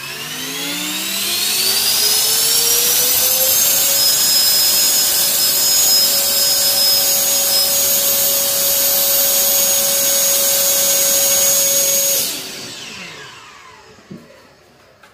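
Handheld electric ducted-fan blower (a high-speed jet blower) spinning up with a rising whine and rush of air. It runs at full speed for about eight seconds, then is switched off about twelve seconds in and winds down.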